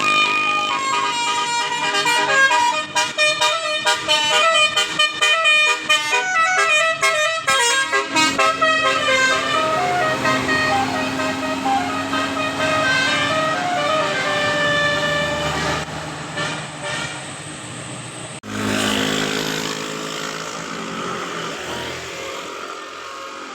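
Telolet basuri multi-tone air horn playing a melody, with rapid short notes stepping up and down, then slower, longer notes. About eighteen seconds in, the sound breaks off sharply and fainter horn tones go on over a noisier background.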